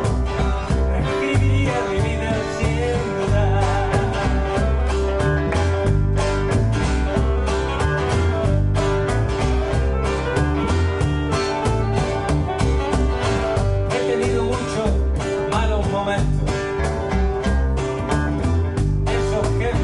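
A small acoustic band playing live: nylon-string classical guitars strumming over an upright double bass, with a cajón keeping a steady beat.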